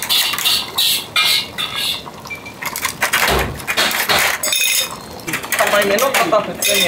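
Ramen kitchen clatter: metal utensils, noodle baskets and bowls clinking and knocking, with a longer noisy rush around the middle and a voice near the end.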